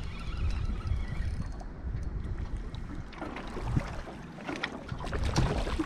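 Wind rumbling on the microphone while a hooked redfin is reeled up to the boat. From about three seconds in there are scattered sharp ticks and crackles as the fish reaches the surface.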